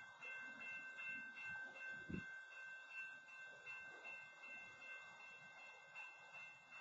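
Near silence: faint steady high tones over a low background hum, with one soft low thump about two seconds in.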